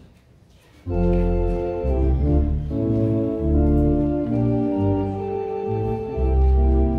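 Organ starts about a second in, playing sustained chords that change every half second or so over a moving bass line: the introduction to a hymn.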